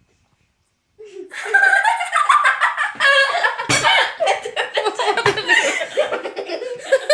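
Hard laughter in rapid fits, starting about a second in after a moment of silence and going on without a break.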